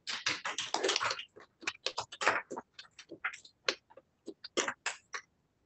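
A small audience applauding at the end of a talk. The claps are dense at first, then thin out to scattered single claps and stop shortly before the end.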